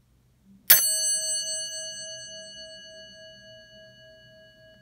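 Westinghouse elevator indicator gong, a brass bell dome, struck once by its plunger-driven striker: a single bright ding about a second in that rings on with several overtones and slowly fades. This is the iconic Westinghouse elevator 'dinner bell' chime.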